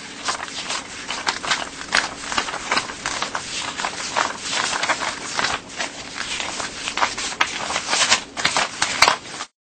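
US paper dollar bills being counted by hand: a quick, uneven run of crisp flicks and rustles as notes are peeled off a stack one after another. It cuts off abruptly near the end.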